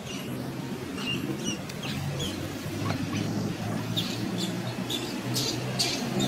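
Baby macaque giving short, high squeaks, several in a row, over a low steady hum.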